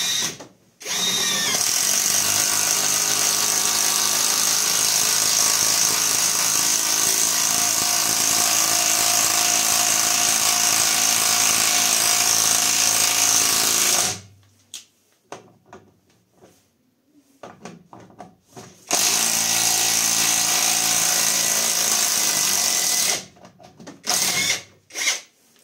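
Catpower 4226 cordless impact wrench hammering as it drives an 8x100 mm lag screw into the hard, knotty part of a wooden log. It runs in one long stretch of about thirteen seconds, then after a pause in a second, shorter run of about four seconds.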